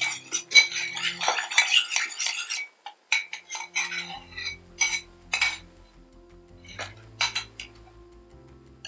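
A metal spoon rapidly clinking and scraping against a small ceramic bowl as sauce is stirred. This gives way, about three seconds in, to scattered clinks and scrapes as the sauce is spooned out and the beef in a glass bowl is mixed.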